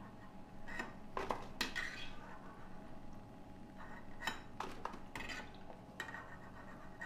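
Steel perforated skimmer clinking and tapping against a steel kadhai as fried golgappe are scooped out of the oil: about eight short, ringing metal clinks at uneven intervals.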